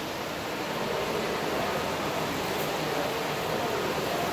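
Steady, even background noise of a large indoor hall, with no distinct sound standing out.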